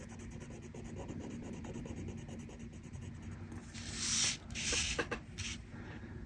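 Felt-tip marker faintly scratching on paper as shapes are coloured in. About four seconds in come a few louder swishes as the sheet of paper is slid and turned on the table.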